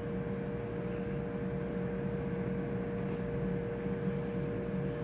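Steady hum of running machinery: two steady mid-pitched tones over a low rumble, unchanging throughout.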